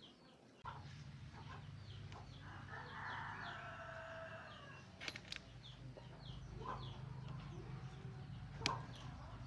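Chickens: a rooster crows once, about two to three seconds in, over short high cheeping calls that repeat throughout. A low steady hum starts under a second in, and a few sharp clicks come near the end.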